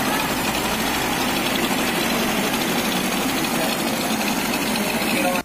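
Kawasaki Blitz single-cylinder four-stroke engine idling steadily with the tappet cover off its cylinder head. After the rebuild it runs smoothly, with oil now reaching the rocker arm. The sound drops out briefly near the end.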